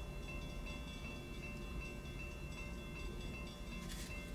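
Railroad crossing warning bell ringing steadily, about two to three strikes a second, while the crossing gate arm lowers: the warning for an approaching train. A brief swish comes near the end.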